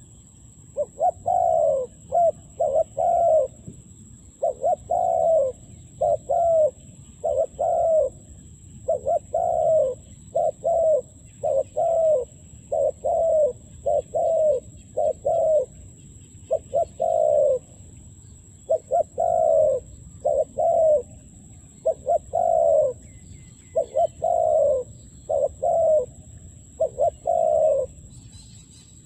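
Dove cooing over and over in short phrases of two or three low notes, a phrase every second or two.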